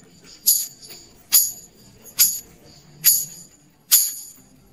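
Background music carried by a jingling tambourine-like beat, one sharp stroke a little under every second.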